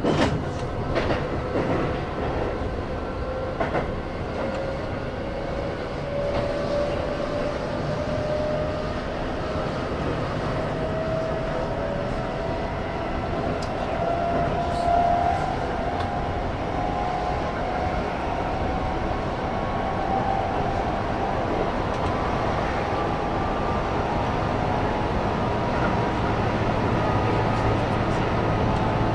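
Keihan electric train running, heard from the front of the car: the traction motors whine, rising slowly and steadily in pitch as the train gathers speed, over a constant rumble of wheels on rail. A few sharp wheel clicks over rail joints come in the first few seconds.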